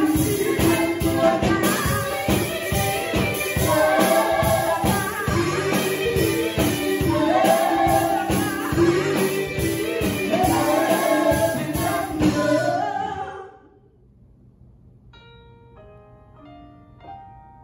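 Gospel song with singing voices over a steady beat, fading out about thirteen seconds in. Soft, sparse piano or keyboard notes follow.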